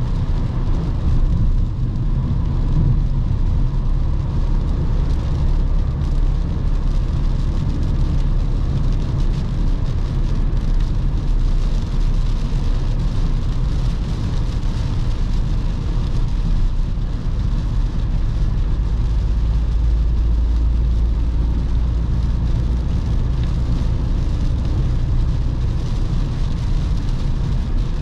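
2021 Volkswagen Passat B8 driving on a wet road, its 2.0 TDI four-cylinder diesel running steadily under the hiss of rain and tyre spray.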